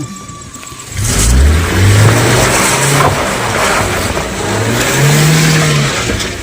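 Vehicle engine revving hard, starting suddenly about a second in, its pitch rising and falling several times under a loud rushing noise.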